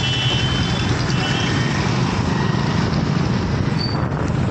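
Heavy diesel machinery engine running steadily with a low rumble, with a thin high tone over it in the first second or so.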